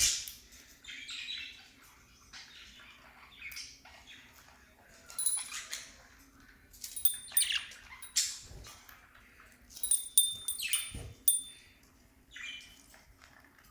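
Small pet parrots (lovebirds and budgerigars) giving short, scattered chirps and squeaky calls, with a couple of brief thumps about eight and eleven seconds in.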